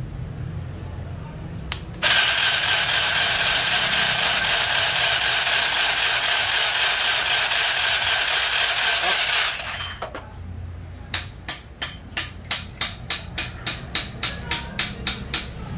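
A handheld power tool runs steadily for about seven and a half seconds while a metal engine part is cut down. About a second after it stops comes a quick run of about a dozen sharp taps, roughly three a second.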